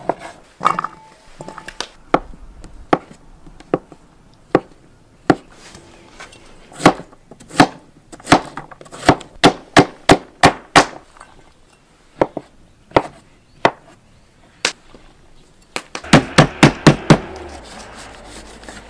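Chinese cleaver chopping cured pork and Chinese sausage into small dice on a wooden chopping board: sharp knocks of the blade striking the board at an uneven pace. Near the end comes a quick run of about six chops through green garlic stalks.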